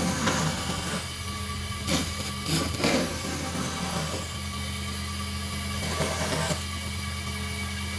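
A power tool's motor running steadily, with several short bursts of harsher noise as it works wood.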